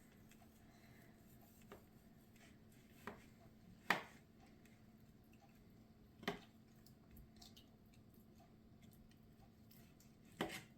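Kitchen knife slicing a raw chicken breast, with a few sharp knocks of the blade on the cutting board, the loudest about four seconds in and another near the end, over a faint steady hum.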